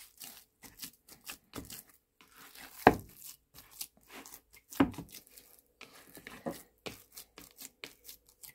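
Hands kneading and squeezing a soft croquette mixture in a plastic bowl: irregular soft squelches and rubbing, with two louder knocks about three and five seconds in.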